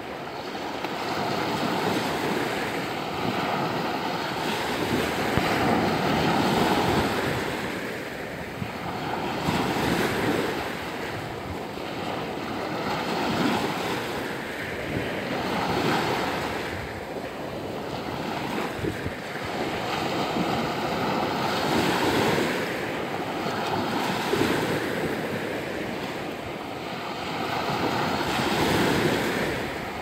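Small Black Sea waves breaking and washing up on the shore, the surf swelling and falling back every few seconds.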